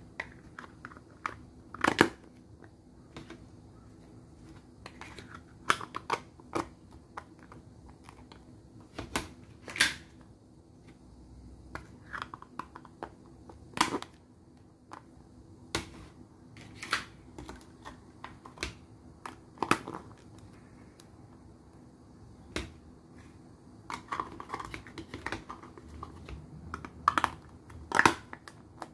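Thin clear plastic lids being pressed onto plastic pudding cups: sharp snapping clicks every second or few as the lids close, with plastic crinkling in between. A faint steady hum sits underneath.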